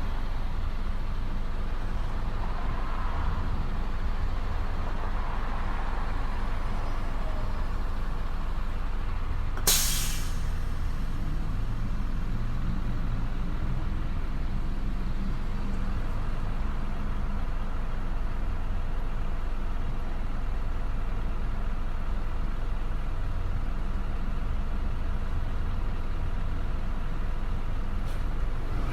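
Busy town street traffic: a steady low rumble of passing vehicles, with a short, sharp hiss about ten seconds in.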